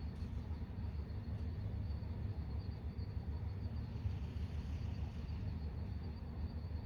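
Night ambience: a steady low rumble of distant traffic, with insects trilling on one high note. A faint hiss swells and fades about four to five seconds in.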